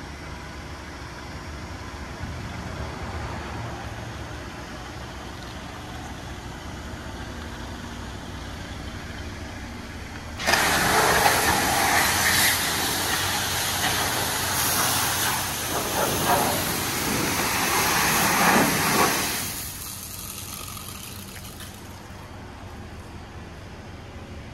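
A steady low hum, then water jetting from a car wash's floor-mounted spray bar against the lower side of a car: a loud, dense spray noise that starts suddenly about ten seconds in, runs for about nine seconds with some rising and falling, and dies away.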